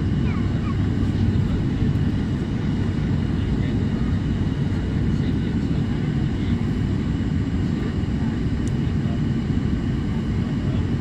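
Steady drone inside the cabin of an ATR 72-600 twin turboprop, its Pratt & Whitney PW127 engines and propellers running on descent toward landing, with a steady hum held underneath.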